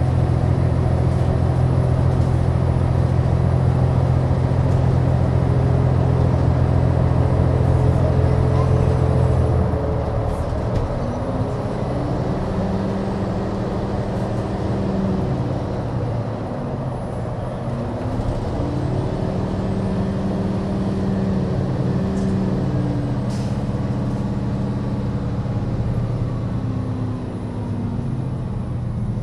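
New Flyer XDE60 Xcelsior articulated hybrid bus with a Cummins ISL9 diesel, idling while stopped. A loud steady low hum drops away about ten seconds in. After that, quieter engine tones rise and fall twice, with a brief sharp hiss or click near the end.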